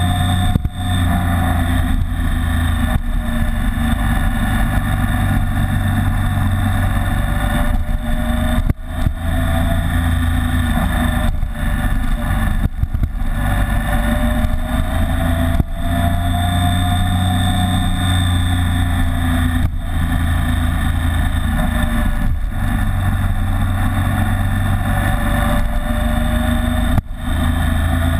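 BMW K75 motorcycle's inline three-cylinder engine running under way, its pitch slowly rising and falling with throttle and speed. The sound briefly drops about nine seconds in and again near the end.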